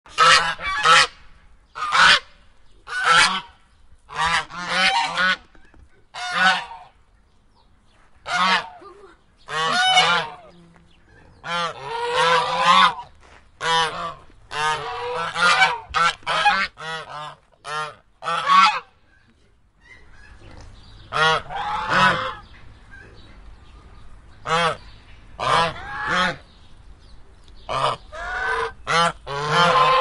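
Geese honking and cackling in irregular clusters of short, loud calls, often overlapping. There is a brief lull about two-thirds of the way through, after which a faint low background rumble is present.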